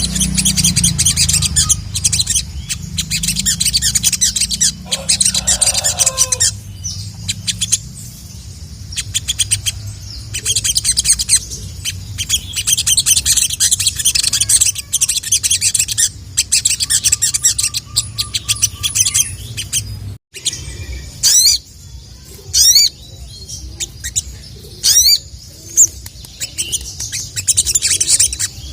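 Crimson sunbird (sogok ontong) singing in rapid, high twittering trills and chirps, with a few loud sharp sweeping whistles in the second half. A low hum runs underneath until it cuts off suddenly about two-thirds of the way in.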